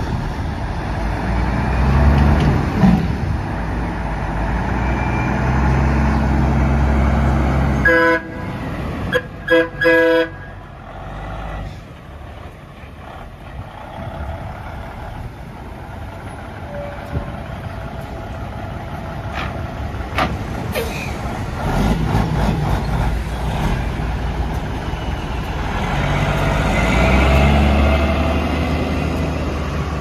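Straight-piped Volvo VNL semi truck's diesel engine running loud as it approaches, cut by a few short blasts of its fouled train horn about eight seconds in. The exhaust drops away for a while, then comes up again near the end as the truck pulls past under load.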